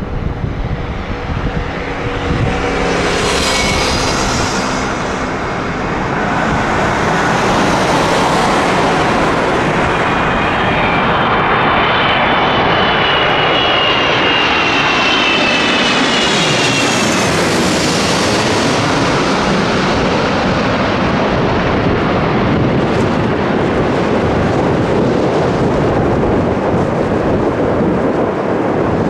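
Airbus A330-300 jet engines on final approach, passing low overhead: a loud, steady jet rumble that builds to a peak, with a high engine whine that falls in pitch as the plane goes over, then continues as it flies away toward the runway.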